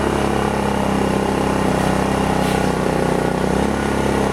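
Harbor Freight Predator inverter generator's single-cylinder engine running at an even, unchanging speed.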